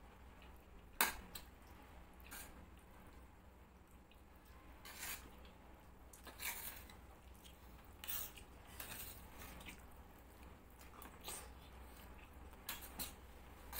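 Metal spoons scraping and clinking against stainless steel plates while eating dalia, in scattered short strokes, with one sharp clink about a second in and quicker clinks near the end.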